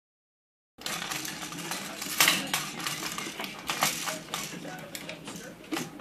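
Umbrella cockatoo working a plastic toy with its beak in its cage: irregular clicking and clattering that starts under a second in, with a louder clack about two seconds in.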